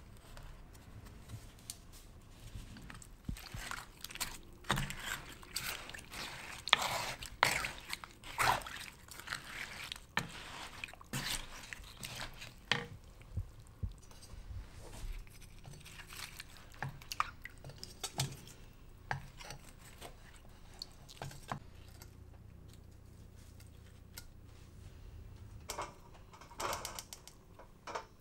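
Hands moving sugar-steeped wild pear slices in their syrup: a run of small wet, sticky clicks and drips, thickest in the first half and again briefly near the end, over a low steady hum.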